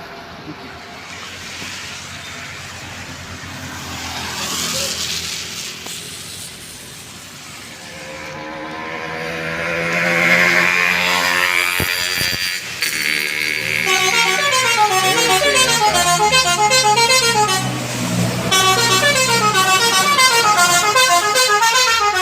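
A bus's telolet musical horn playing a fast, stepping multi-tone melody, starting a little past halfway. Before it, the bus's engine grows louder as it comes near.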